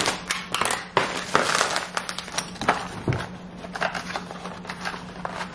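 Plastic packaging crinkling and rustling in irregular crackles as a white mailer package is opened and rummaged through by hand, over a faint steady hum.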